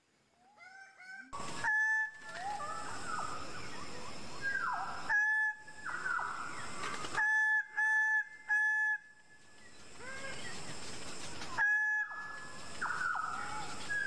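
Greater bird-of-paradise calling: loud, short honking notes repeated in a series, several in a quick run of three near the middle, with harsh rasping calls between them. It starts after about a second of near quiet.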